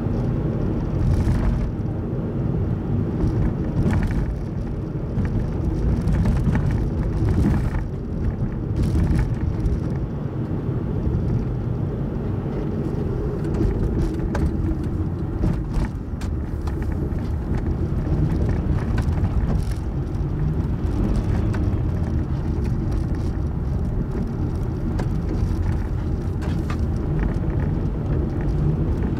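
Car travelling steadily along the road: continuous engine and tyre noise, with scattered light knocks and clicks from bumps in the road.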